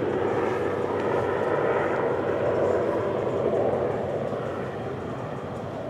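Steady rumble of a passing vehicle's engine, swelling in the middle and easing off near the end.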